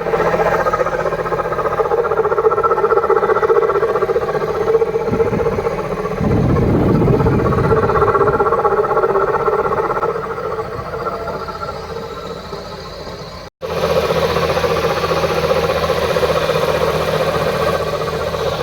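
Mini Cooper S N18 1.6-litre turbocharged four-cylinder engine running with a steady weird noise, which the owner links to the high-pressure fuel pump. A deeper rumble swells in for about two seconds a third of the way through, and the sound cuts out for an instant about two-thirds through.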